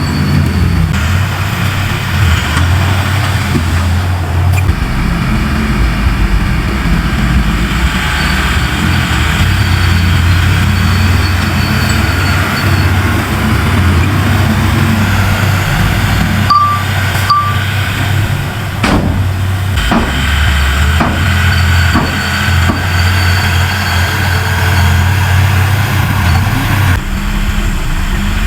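Heavy diesel earthmoving machinery running steadily with a low engine rumble, with two short beeps about two-thirds of the way through and a few sharp metallic knocks soon after.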